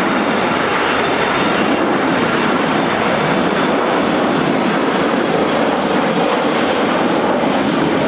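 Loud, steady rushing engine noise of a large FedEx freighter jet landing.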